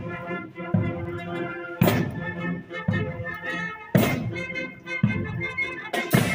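Marching band playing a march: wind instruments carry a sustained melody over a heavy drum beat that falls about once a second.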